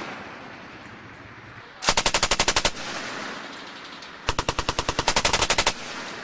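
A machine gun firing two short bursts of about ten and fourteen rounds, the second a little longer, each followed by a rolling echo.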